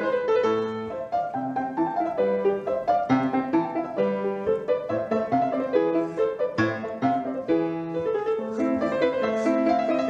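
Piano music, a quick, continuous flow of notes.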